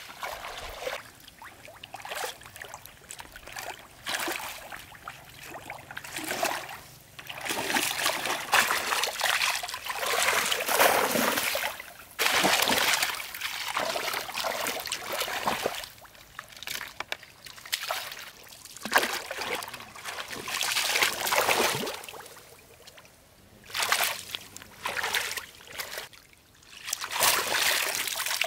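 Pond water splashing and sloshing in irregular bursts a few seconds long, with quieter trickling between them.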